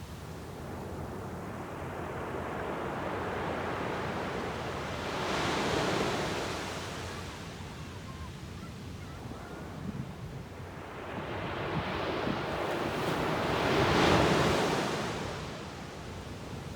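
Sea waves breaking on the shore, two swells of surf that build and wash in about six and fourteen seconds in, with some wind on the microphone.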